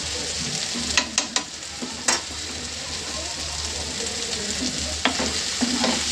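Chicken pieces with onion leaves and vegetables sizzling steadily in a frying pan on medium-high heat, with a few sharp clicks about one to two seconds in. Near the end a wooden spatula starts stirring the food in the pan.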